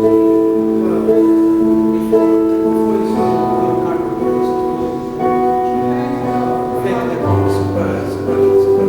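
Slow background music of sustained chords that change every second or two over a held low bass note.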